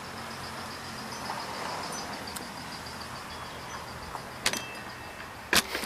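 Steady rain falling, with a faint high pulsing tone that fades out about four seconds in and two sharp knocks near the end.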